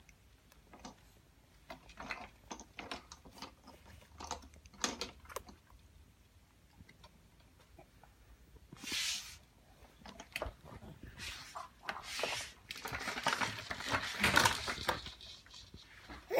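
Plastic toys on a baby's Rainforest Jumperoo bouncer rattling and clicking as the baby plays. There are many scattered short knocks early on, then a few longer rustling bursts.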